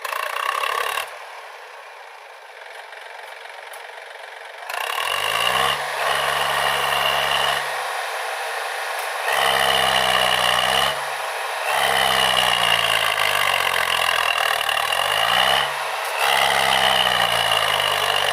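Diesel engine of heavy machinery revving under load in repeated surges of a few seconds each, with short breaks between them and a steady high whine over the top.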